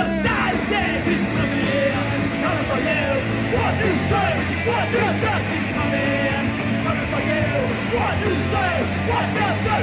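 Rock music playing with a steady bass line, under the overlapping chatter of a crowd.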